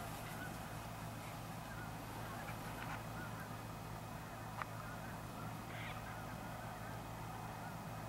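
Geese calling faintly and sparsely in the distance over a steady low hum.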